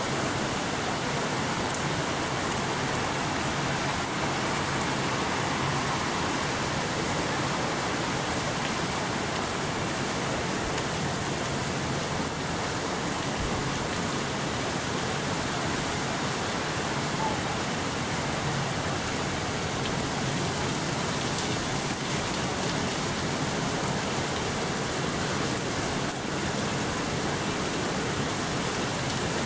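Steady rush of water falling and splashing off a large steel overshot waterwheel, with no beat or pause.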